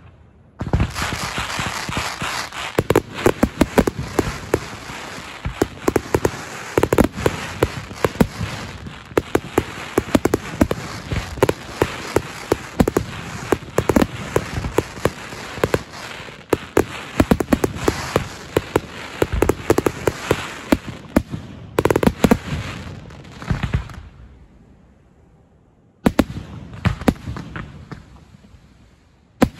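Fireworks finale barrage: a dense, rapid run of bangs and crackling reports starting about a second in, dying down about 24 seconds in, and starting again two seconds later.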